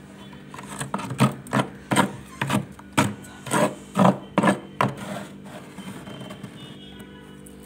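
Thick freezer frost being scraped with a spoon: about ten short, crunchy scraping strokes at roughly two a second, stopping after about five seconds. A low, steady hum runs underneath.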